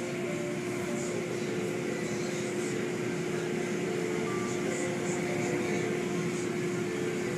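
Automatic car wash heard from inside the car: water spraying and cloth brushes sweeping over the windshield, a steady noise with a constant hum underneath.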